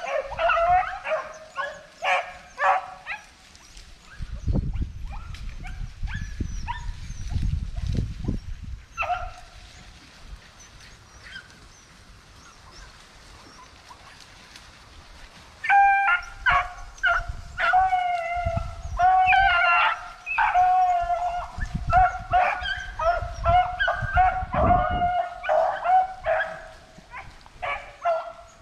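Rabbit hounds baying while trailing a rabbit: a run of calls at the start, a lull through the middle, then steady baying from about halfway on. A low rumbling noise comes and goes underneath.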